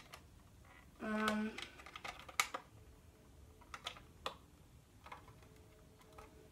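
Clear hard-plastic camera case being handled and pried at with fingers: scattered light clicks and taps of plastic, the loudest about two and a half seconds in. A short hummed vocal sound about a second in.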